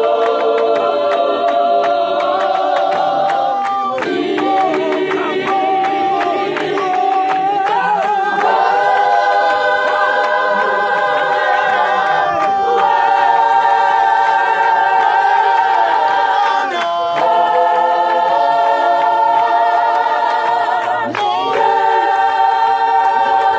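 Gospel choir singing a cappella, many voices holding long notes in phrases that break about every four seconds, with hand clapping along.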